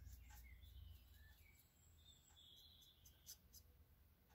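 Near silence: faint room tone with a few soft, high ticks and scratches.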